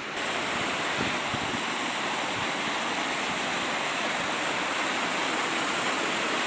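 Waterfall pouring over rock ledges: a steady rush of falling water that grows louder a moment in.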